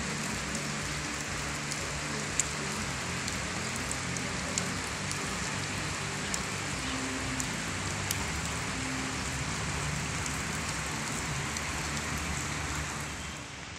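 Steady rain falling on wet concrete pavement, an even hiss with scattered sharp drop ticks, over a low hum.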